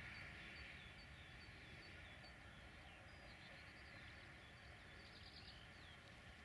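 Faint small-bird song over a quiet open-country background: short high notes repeating about twice a second, a few longer gliding notes, and a brief rapid trill about five seconds in.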